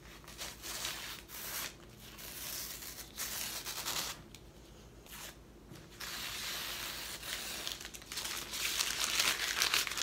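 Tape being peeled off canvas in several long pulls, with rustling of the canvas and the peeled tape being crumpled up.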